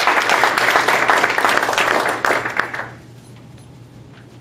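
Audience applauding, dense clapping that dies away about three seconds in, leaving a quiet room with a low steady hum.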